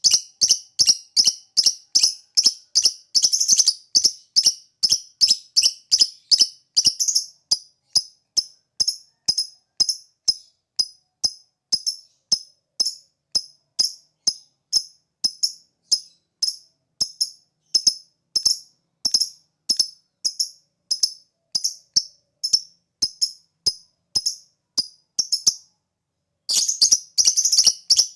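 Lovebird 'ngetik' call: a long run of short, sharp, high chirps at a steady rate of about two to three a second. Near the end it breaks off briefly, then comes back as a quicker, denser flurry.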